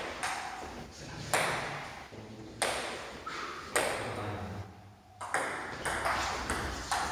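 Table tennis ball knocking on bats and table: a few single clicks about a second apart, then a quick run of ping-pong hits as a doubles rally starts in the last couple of seconds.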